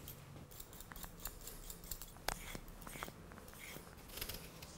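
Small paring knife cutting the peel off a root vegetable: faint, irregular slicing and scraping strokes with a few sharp clicks.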